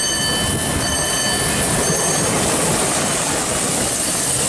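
Ex-ÖBB X626 motor track car running past at close range, a steady rumble of engine and wheels on the rails. A high ringing tone comes and goes about once a second, fading out midway and returning near the end.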